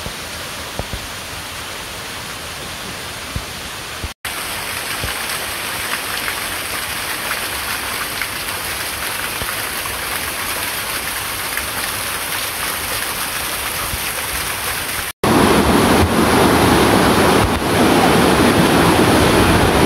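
Steady rushing and splashing of water from a small waterfall pouring down a rock face. The sound cuts out twice for an instant. After the second break, about 15 seconds in, a whitewater stream cascading over boulders takes over, much louder.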